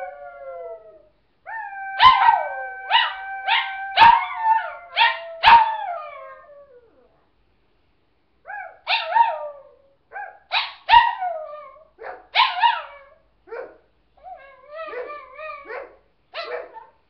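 A pet dog howling in long drawn-out calls that slide down in pitch, broken by sharp barks; after a short pause about seven seconds in, it gives a run of shorter yips and barks.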